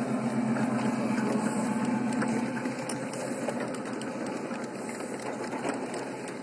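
Ride-on miniature train passing: the locomotive's steady motor hum fades about two and a half seconds in as it moves away, then the freight cars roll by with scattered light clicks of wheels on the track.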